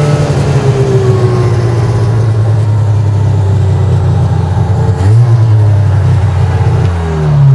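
A motor vehicle engine running steadily. Its pitch sags slowly, then it revs up briefly about five seconds in and again near the end.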